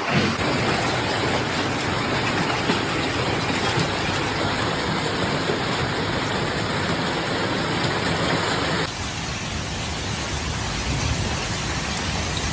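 Steady hiss of a heavy storm, rain and wind, recorded on a phone, with an abrupt change in the noise about nine seconds in as one clip gives way to another.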